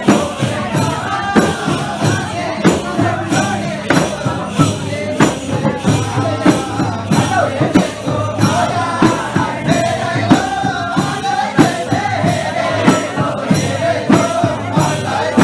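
Live Nepali chudka folk music: voices singing a wavering melody over a steady, rhythmic hand-drum beat.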